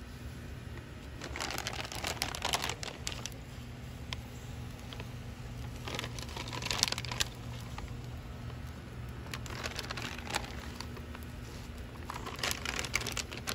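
Plastic bag of shrimp crinkling in four separate bursts as it is handled, over a steady low rumble.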